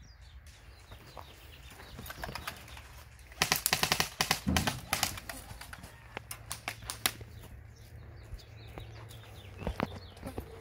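Airsoft gun firing rapid full-auto bursts of BBs for about a second and a half, about a third of the way in. Scattered single clicks and taps follow, with a few more near the end.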